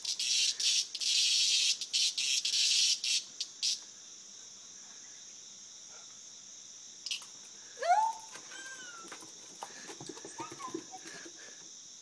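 A cicada giving loud, broken distress buzzes in short bursts while the beagle has it in her mouth or paws, stopping about four seconds in. A steady faint high insect drone goes on behind it, with a short rising squeal about eight seconds in.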